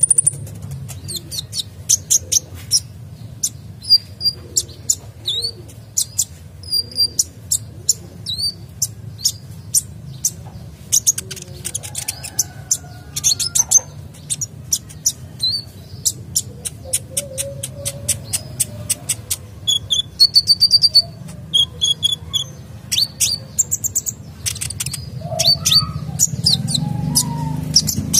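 Male sunbird (kolibri dada coklat) singing energetically: a fast, unbroken run of high-pitched chirps, sharp ticks and short twittering trills, over a steady low hum.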